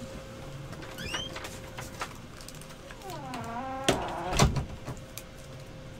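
A door creaking open with a drawn-out squeak, then two knocks about four seconds in, over light clicks and rustles of trading cards and toploaders being handled.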